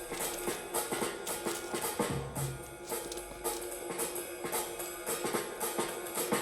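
Background music with a steady drum-kit beat, a bass drum coming in about two seconds in.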